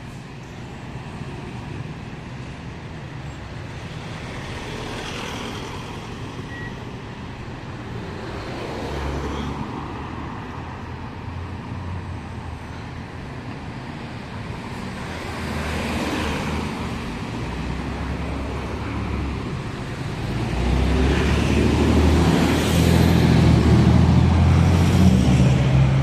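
Street traffic: a city bus and cars driving by. Low engine running comes and goes under a steady hiss of tyres and traffic, and a heavy engine's rumble is loudest in the last several seconds.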